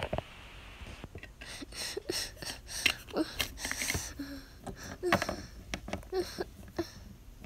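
Breathy gasps and whimpering from a voice acting out crying, over scattered clicks and knocks of plastic toy figures being handled.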